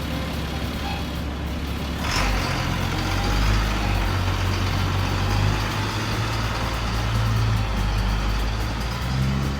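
Heavy vehicle's engine running steadily, getting louder about two seconds in.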